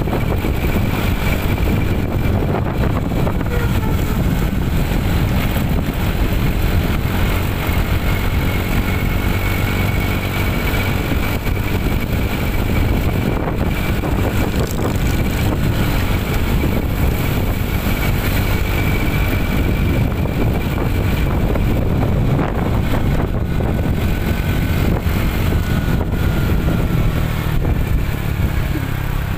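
Motorcycle being ridden steadily along a road: a constant engine drone with wind and road rush over the microphone, and a faint steady whine above it.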